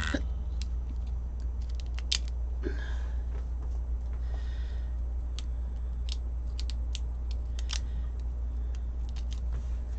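Small clicks and soft crinkling of plastic wrap being picked at and pulled off a roll of washi tape by hand, over a steady low hum.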